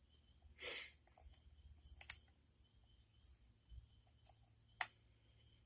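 Faint clicks and short scrapes of a lock pick and tension wrench working the pin stack of a K1 Locks 'Docking' lock. There is a brief scrape about a second in and sharper single clicks around two and five seconds in.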